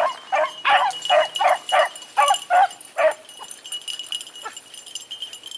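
Beagles baying while they trail a rabbit: about nine short barks at an even pace, stopping about three seconds in.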